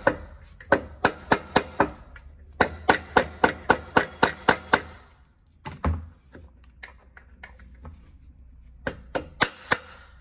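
Hammer tapping a gear shaft into its bearing in an ATV's GY6-type final-drive gearbox housing: quick runs of sharp metallic taps, about five a second, with short pauses, a single knock about six seconds in, and a few more taps near the end.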